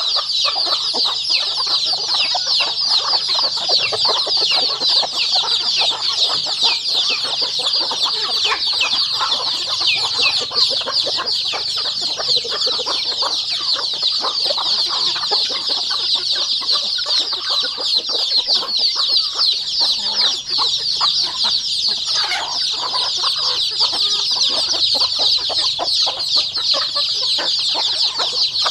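A flock of chickens calling all at once: a steady, dense chorus of many high overlapping peeps, with lower clucks mixed in.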